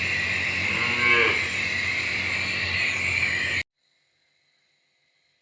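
A calf moos once, about a second in, over the steady hiss of a running nebulizer machine delivering medicine to the calf for a respiratory infection. All sound cuts off abruptly a little after three and a half seconds.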